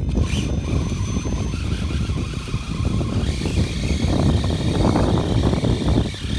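Radio-controlled Cen F450 crawler truck driving, its electric motor giving a steady high whine that fades out a second and a half in, over continuous crackling and clatter from the truck moving.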